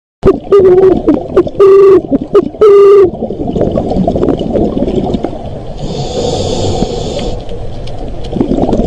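Dolphins calling underwater: three short, loud pitched calls in the first three seconds, then a steady rushing of water with bubbling.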